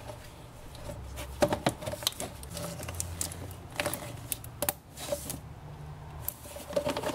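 Plastic intake hoses and connectors being handled and pushed into place in an engine bay, giving scattered light clicks and knocks, the sharpest about a second and a half in and near four seconds.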